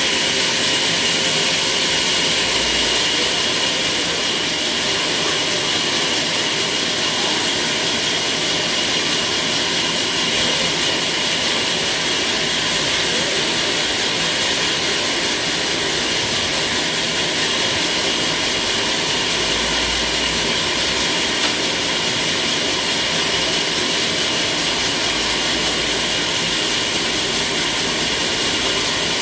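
Sawmill band saw running and cutting through a squared log: a loud, steady whine and hiss with a constant high tone.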